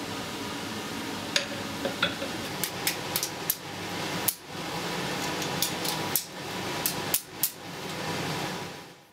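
Blacksmith's hammer and tongs tapping and clinking on a steel anvil: a dozen or so irregular sharp metal strikes over a steady whirring background, fading out near the end.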